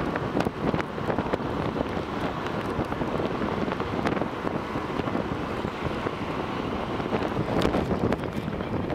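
Steady road and wind noise of a moving car, heard from inside, with wind buffeting the microphone and a few faint clicks.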